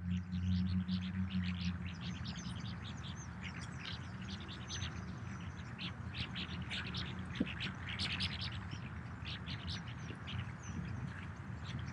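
Small birds chirping and tweeting in short, quick calls, on and off throughout, over a quiet outdoor hush.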